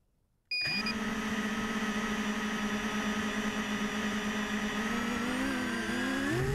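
Falcon Multirotor Bannilite FPV quadcopter's brushless motors starting about half a second in: a short beep as the drone arms, then the propellers spinning at a steady idle hum, rising in pitch near the end as the throttle comes up.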